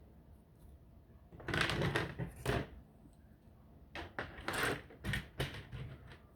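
Plastic LEGO Bionicle pieces being pulled apart and handled: two bursts of clicks and clatter, one about a second and a half in and another from about four seconds in.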